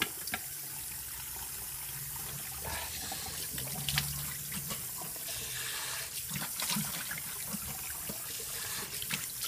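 Tap water running into a sink while water is scooped and splashed onto the face with cupped hands, rinsing off shaving lather. Steady running with irregular splashes.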